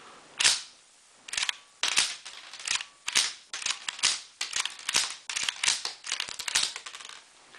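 The bolt of a Remington 550-1 semi-automatic .22 rifle being worked by hand: a series of sharp metallic clacks, more than a dozen, often two or three close together, as dummy rounds are fed from the magazine, chambered and ejected in a function check.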